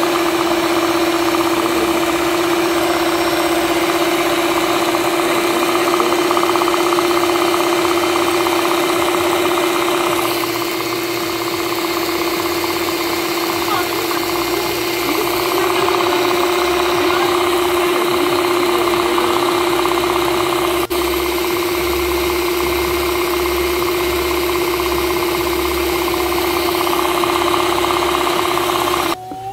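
Electric mixer running steadily, its two beaters whipping thick chocolate cake batter, with a constant motor hum; it switches off suddenly near the end.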